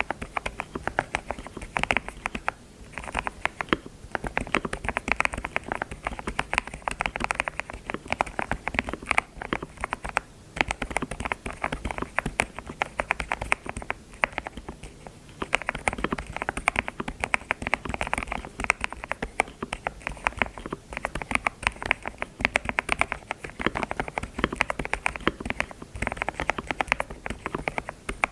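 Computer keyboard being typed on: fast runs of sharp key clicks in bursts, broken by brief pauses.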